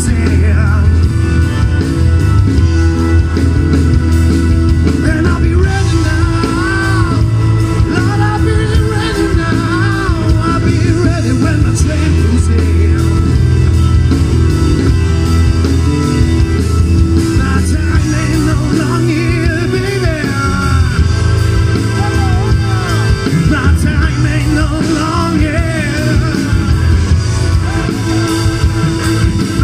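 Live rock band playing: electric guitar, electric bass, drum kit and a Roland VK-8 organ, steady and loud.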